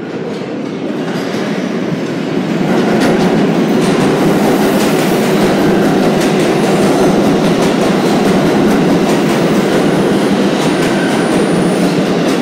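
Kawasaki R188 subway train entering an underground station. The rumble of its wheels on the rails grows over the first few seconds as it arrives, then holds loud and steady as the cars pass, with repeated clacks of wheels over the rail joints.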